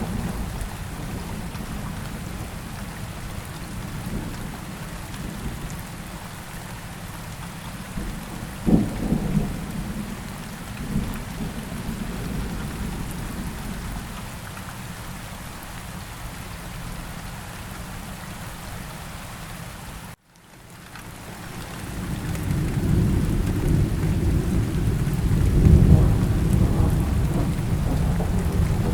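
Steady rain with rolling thunder. A sharp crack of thunder comes about a third of the way in. The sound cuts out for a moment about two-thirds through, then the rain returns with a long low thunder rumble swelling up.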